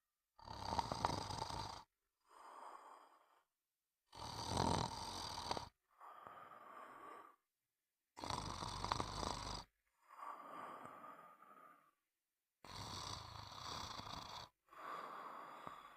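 Snoring, about four slow breaths. Each breath is a loud snore followed by a softer one, with short silent gaps between them.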